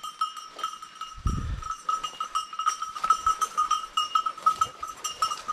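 A hunting dog's collar bell ringing in quick, uneven jingles as the dog moves through the undergrowth. The bell keeps sounding, so the dog is still moving and not on point. A short low thump comes about a second in.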